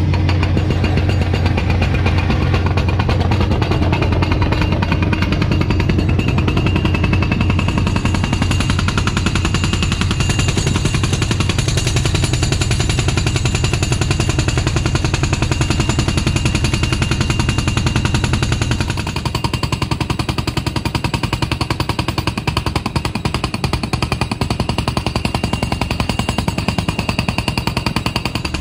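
Truck-mounted rock drill hammering into bedrock, a rapid continuous pounding, over the steady low drone of the large generator's engine. About two-thirds of the way through the hammering becomes a little quieter.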